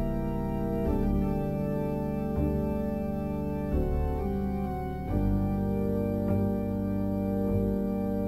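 Organ music: slow, held chords that change about every second and a half.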